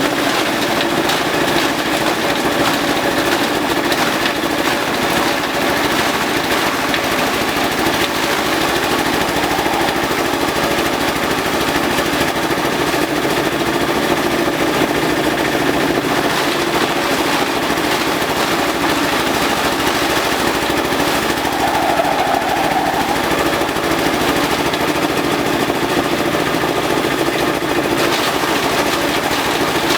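Compost chopper machine running loud and steady, shredding elephant grass with a fast, continuous rattle over the hum of its drive.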